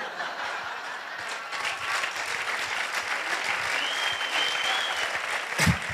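Audience applauding after a punchline, the clapping building up over the first second or two and carrying on steadily.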